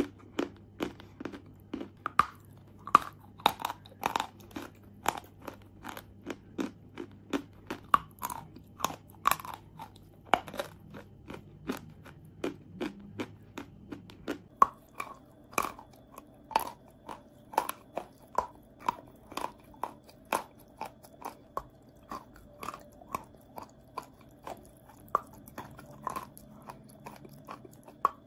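Chunks of chalk being bitten and chewed close to the microphone: a run of sharp, crisp crunches, about two or three a second.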